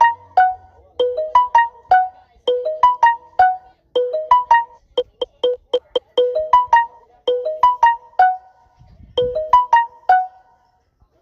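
A short electronic keyboard-like melody of quick, plucked-sounding notes, the same phrase looping over and over about every second and a half, with a faster run of repeated notes about halfway through.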